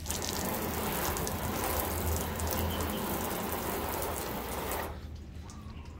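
Garden hose nozzle spraying water onto a car's painted hood, a steady hiss and patter that shuts off abruptly about five seconds in.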